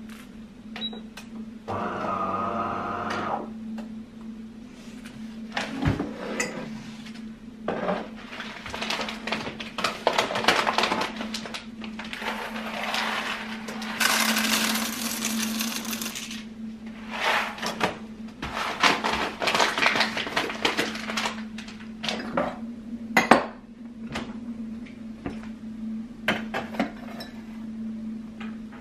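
Household handling sounds: dishes and utensils clinking and knocking, with a short buzzing machine about two seconds in and a hiss midway, over a steady low hum.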